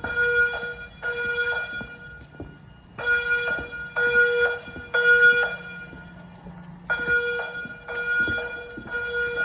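EST3 voice evacuation speakers sounding the temporal-three evacuation tone: a pitched beep pulsed in groups of three, each beep about half a second, with a pause of over a second between groups. This is the standard fire alarm signal to evacuate the building.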